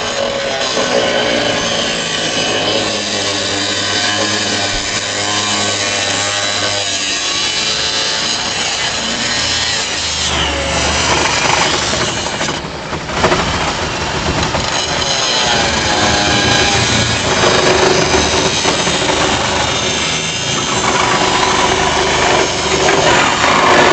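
Power cutting tools biting into the steel cab of a 1983 Toyota HiLux pickup, the motor's pitch rising and falling as it loads up under the cut.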